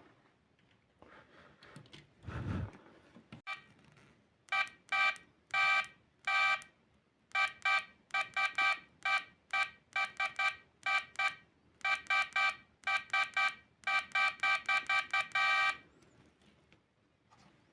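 A long series of short electronic beeps, all at the same buzzy pitch, some in quick runs and some held a little longer, starting about four seconds in and stopping a couple of seconds before the end. A single dull thump comes before them.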